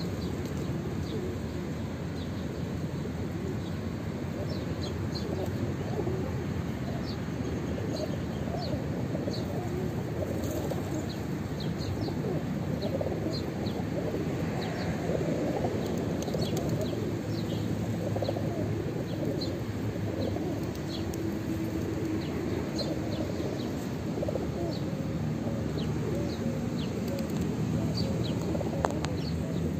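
A large flock of feral pigeons feeding close by: a steady rustle of wings and shuffling birds with cooing, and short high chirps scattered throughout.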